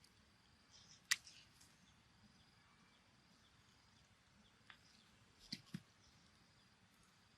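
Quiet background broken by a few sharp clicks or taps: a loud one about a second in, a faint one later, and a quick pair near the end.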